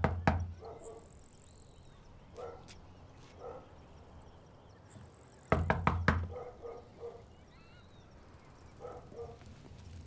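Knocking on a heavy wooden front door: a quick run of knocks at the start and a second, louder run about five and a half seconds in.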